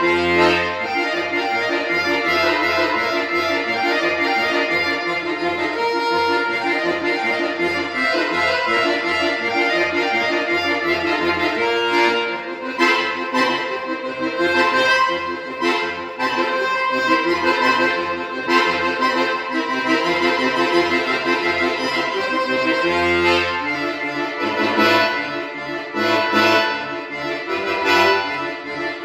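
Piano accordion played solo: a lively piece with a steady bass-and-chord accompaniment under the melody, with passages of short, detached notes in the middle and near the end.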